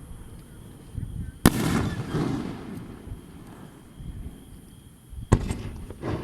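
Aerial fireworks shells bursting: a sharp bang about a second and a half in that trails off over about a second, then another bang and a smaller one near the end.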